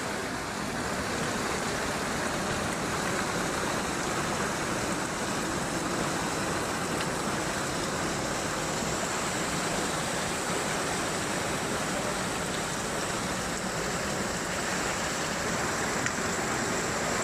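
Floodwater rushing, a steady, even rush of water.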